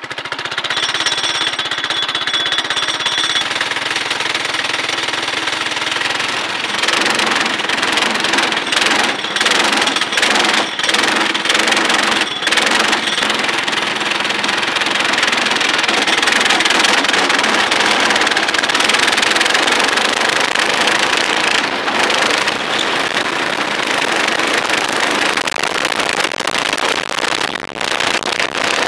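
Small kids' racing kart engine heard from on board. It holds a steady note for the first few seconds, then rises and falls as the kart is driven through the corners of the track.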